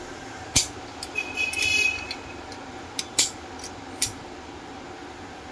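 Red water-pump pliers working a brass tap spindle tight into its chrome tap body: a sharp metal click, then a brief squeaky metal-on-metal scrape as the spindle is turned, followed by a few lighter clicks of metal on metal.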